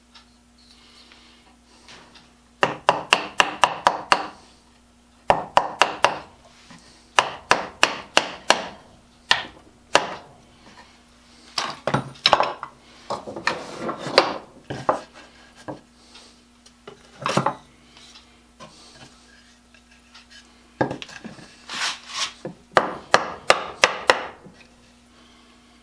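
Hammer tapping on wood in quick runs of several blows with short pauses between, as pegs are driven into the wooden clamp rack.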